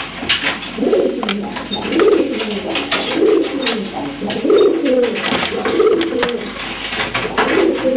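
Domestic pigeons cooing: repeated low coos, about one a second, with sharp light clicks scattered through.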